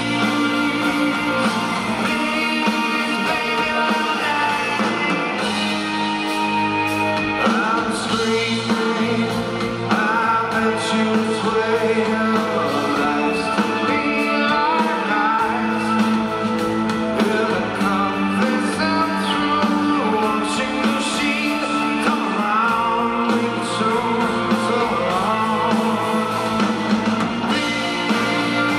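Rock band playing live: electric guitars and drums, with a man singing lead.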